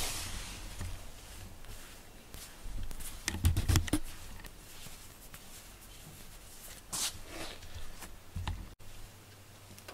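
Soft rustles, small taps and low thumps of handling close to the microphone as a hand strokes a cat, bunched about three to four seconds in, with another brief rustle a few seconds later.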